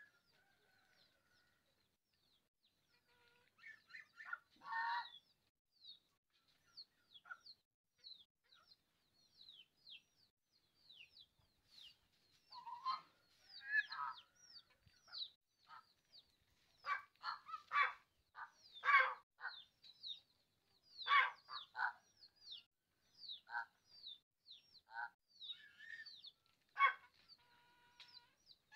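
Birds calling outdoors. A steady run of short, high, falling chirps is overlaid by louder, harsher calls that come now and then at first and thicken in the second half.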